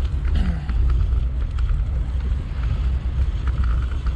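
Wind buffeting a GoPro Hero7 Black's microphone while riding a bicycle along a paved trail, a dense steady low rumble mixed with tyre noise and small clicks and rattles from the bike.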